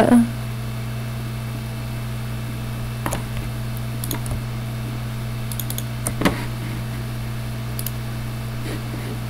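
Steady low electrical hum from the recording setup, with a few scattered sharp clicks of a computer mouse and keyboard; the strongest click comes about six seconds in.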